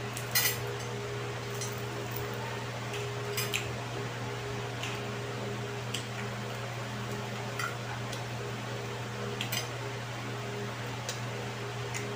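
Steady low electric-fan hum, with a scatter of short sharp clicks and clinks from eating at a plate; the loudest come about half a second in and about three and a half seconds in.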